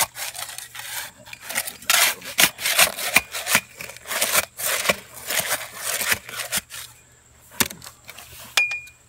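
Steel blade of a small square shovel jabbing and scraping in gravelly concrete mix and soil around a post in a hole, in irregular strokes about two a second. The strokes stop about seven seconds in, followed by a single knock.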